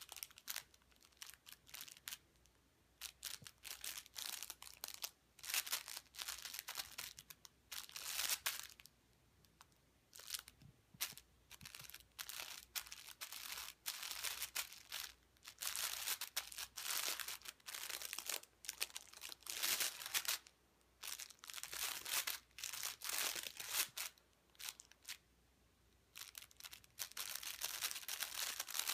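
Crinkly cat play mat rustling and crinkling in irregular bursts as a cat paws, scrabbles and bites at it.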